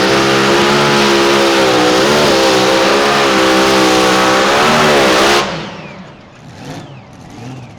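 Pulling tractor's engine running at full throttle under load, very loud, its pitch wavering up and down, then cut off suddenly about five seconds in, leaving a much quieter background.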